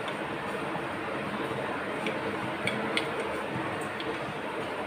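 Wooden rolling pin rolling bhatura dough on a wooden rolling board (chakla), with a few light clicks as the pin knocks the board, over a steady background hiss.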